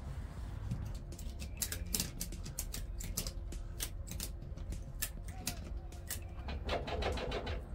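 Ratchet strap being cranked tight around a tractor tire's tread to squeeze the beads out toward the rim for seating: irregular clicks from the ratchet, with a quick run of clicks near the end.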